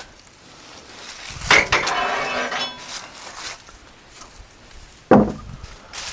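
Metal clanking. About a second and a half in there is a ringing clatter lasting over a second, then a single hard knock near the end.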